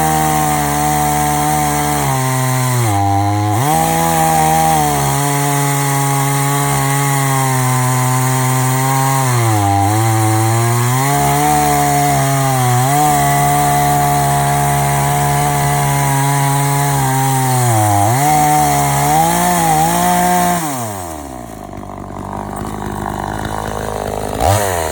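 Chainsaw running at full throttle, cutting a log in an Alaskan-style chainsaw mill. Its pitch dips briefly three times as the cut loads it. About twenty seconds in the throttle is let off and the engine winds down to idle.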